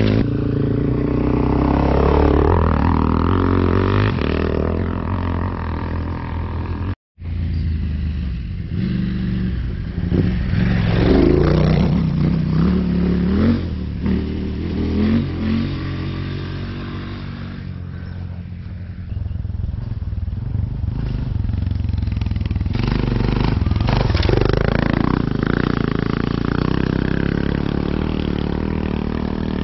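Motorcycle engine running under way, its pitch rising and falling repeatedly as it revs up and eases off. The sound cuts out completely for a moment about seven seconds in.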